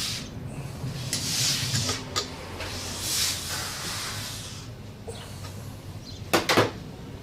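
Workshop handling noise from engine work: hissing, rustling swishes and a few sharp clicks, with a quick cluster of loud metallic knocks near the end.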